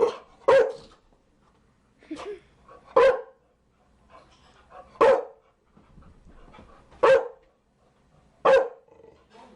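A Chow Chow barking single barks, seven in all, spaced about one and a half to two seconds apart, with a quick pair at the start and a softer bark about two seconds in.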